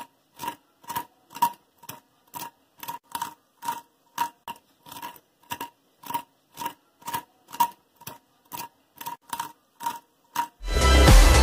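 An even series of short, sharp clicks, about two a second, with quiet in between.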